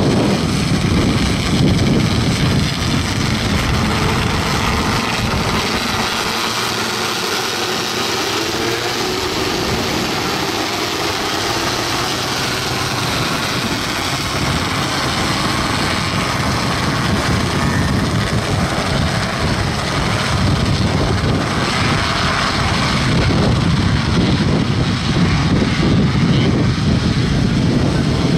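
A pack of 270 micro sprint cars racing, many high-revving engines running together in a continuous loud drone. It dips a few seconds in as the field moves away and swells again in the second half as the cars come close.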